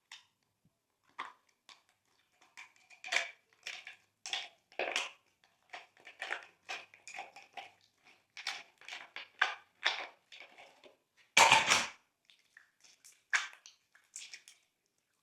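Glossy slime being mixed and squished: a string of short, wet crackles and pops at an uneven pace, the loudest and longest about two-thirds of the way through.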